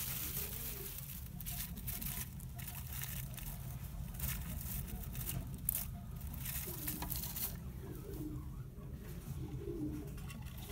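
Low cooing calls like a dove's, a couple near the start and a run of them in the last third, over a steady low hum. Light rustling and clicks come in between.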